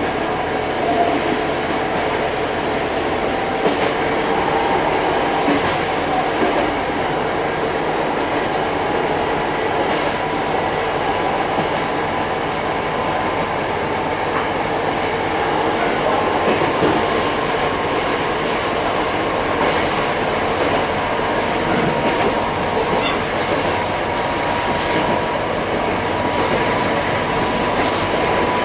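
Running noise heard inside a moving diesel railcar: wheels rolling on the rails with occasional clicks, under a thin steady whine that grows stronger in the second half.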